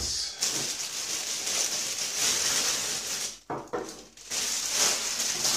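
Plastic packing wrap rustling and crinkling while a compressor's power cord is pulled out of its packing, with a short break about three and a half seconds in.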